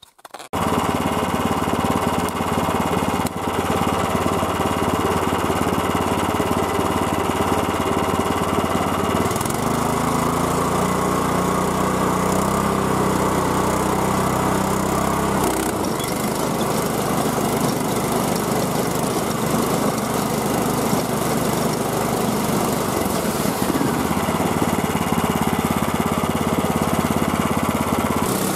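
The 14-horsepower gasoline engine of a homemade motorized dog sled running under load as it pulls the sled over snow. It comes in suddenly just after the start, revs up about a third of the way in, holds higher for several seconds, then drops back to a steadier pace.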